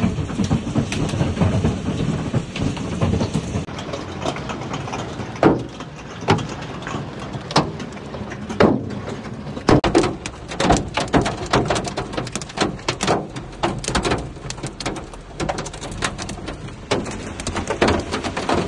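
Heavy hail striking hard surfaces: a dense, irregular clatter of sharp hits, with louder single knocks scattered through.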